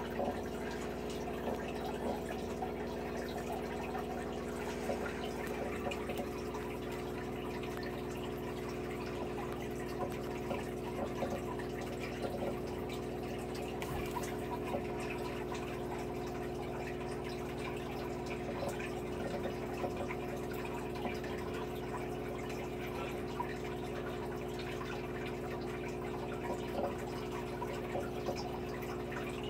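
Aquarium water bubbling and trickling with a continuous patter of small drips and splashes over a steady low hum.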